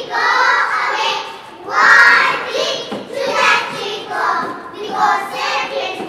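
A group of young children singing a song together, with hand gestures.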